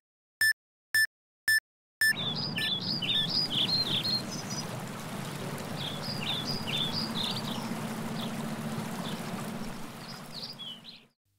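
Electronic heart-monitor beeps, about two a second, stopping about two seconds in. Then songbirds chirping over steady background noise, fading out near the end.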